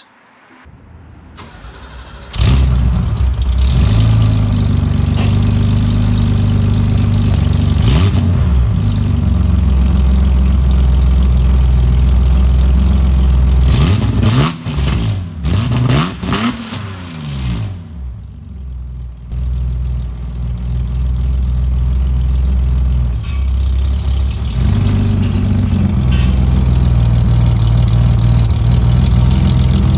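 1988 BMW 535is's M30 straight-six cold-started through an exhaust with no muffler and rust holes: the starter cranks for about two seconds, then the engine catches and runs at a loud fast idle. It is blipped several times around the middle, rising and falling in pitch, then goes back to a steady idle.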